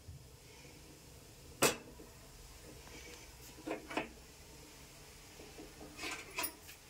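Aluminium cooking pots set down onto the metal pan supports of a lit gas stove: a sharp click about one and a half seconds in, then a few lighter metal knocks and clanks, over a faint steady background.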